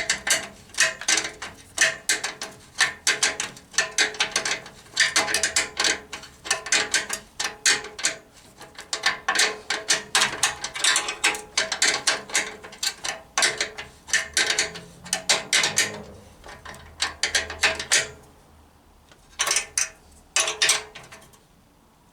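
Ratchet spanner clicking in quick rattling bursts as bolts are wound in, pausing briefly near the end before two more short bursts.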